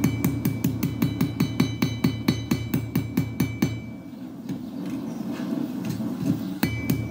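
Hand hammer striking a hot railway spike knife blade on an anvil in quick, even blows, about five a second, with the anvil ringing. The blows thin out a little after halfway and come fast again near the end, over a steady low rumble.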